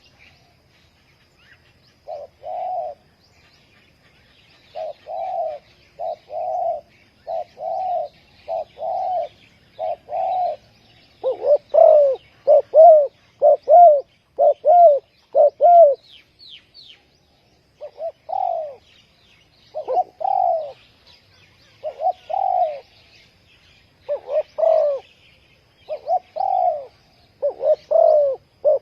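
Spotted dove cooing: a long series of short, repeated coos, louder through the middle with a brief pause partway, then resuming. Faint chirping of small birds sits in the background.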